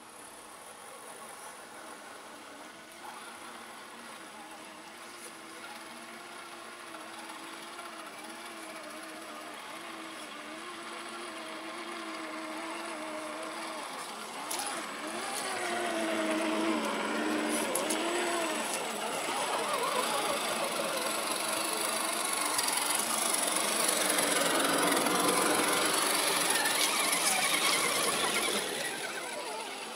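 Electric scale RC crawler trucks driving through a muddy puddle. Their motors and gears whine, the pitch rising and falling with the throttle, and the sound grows louder as they come closer, with splashing water in the second half.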